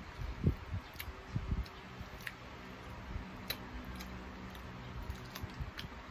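Close-up sounds of a person eating chicken feet with her hands: chewing, with scattered small sharp clicks as she bites and pulls at the skin and small bones, and a few soft low thumps in the first couple of seconds.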